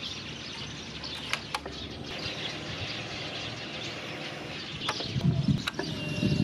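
Birds chirping, with a few sharp clicks. About five seconds in, a low, uneven rumble starts and grows louder.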